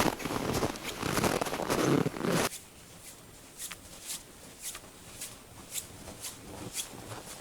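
Footsteps crunching in dry, frozen snow, loud for the first two and a half seconds. They then drop suddenly to fainter, crisp steps about two a second.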